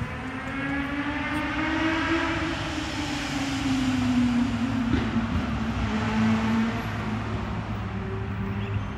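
Engine of a passing vehicle, its pitch rising slightly and then falling slowly over several seconds as it goes by, over a steady low traffic hum. A single sharp click comes about five seconds in.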